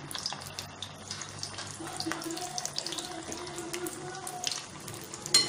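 Whole baby potatoes deep-frying in hot oil in a small kadhai: a steady sizzle with many small crackling pops. A single sharp knock near the end.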